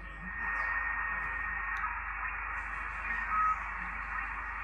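Icom IC-751 HF transceiver's speaker hissing with receiver noise while tuned to lower sideband on the 40-metre band; the hiss gets louder about half a second in. A steady whistle sits over the hiss for the first couple of seconds, and a brief tone comes about three seconds in.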